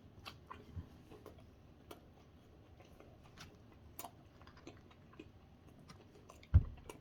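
A person chewing a bite of a soft onion-pancake taco filled with rice and curry, with small wet mouth clicks. A single dull thump sounds near the end.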